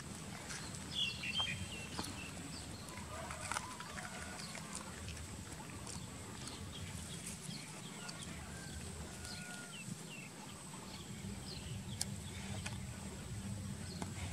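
Short, high chirping animal calls, a cluster of them about a second in and scattered ones after, over a steady outdoor background with a faint continuous high-pitched whine.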